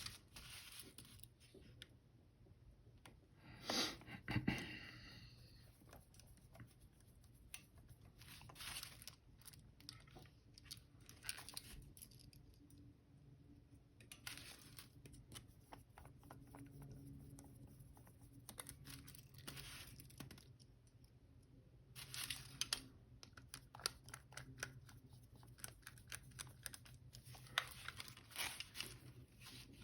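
Small tools and camera parts being handled on a workbench during camera reassembly: scattered light clicks and scrapes, with a louder scrape about four seconds in.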